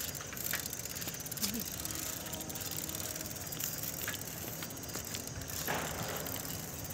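Bicycle rolling along a paved road: steady tyre and drivetrain noise, with a few clicks and rattles.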